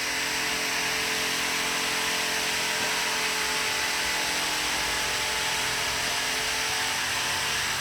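A steady motor drone with a constant hum and hiss, unchanging in level and pitch throughout.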